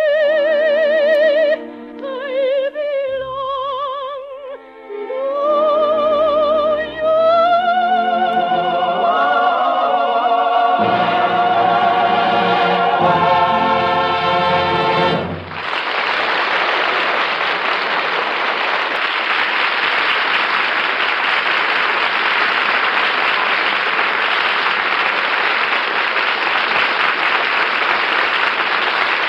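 An operatic soprano, with strong vibrato and orchestral accompaniment, climbs to a final held high note that ends a number. About halfway through, the music stops and a studio audience breaks into steady applause.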